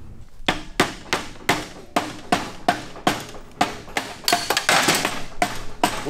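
Mallet hammering in a steady series of sharp strikes, about two to three a second, starting about half a second in.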